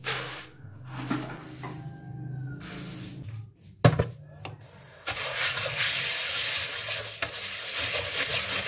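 Dry rice rustling and scraping as it is scooped into a plastic bowl, then a sharp knock as the bowl is set down in a stainless-steel sink about four seconds in. A tap then runs steadily into the bowl while the rice is washed by hand.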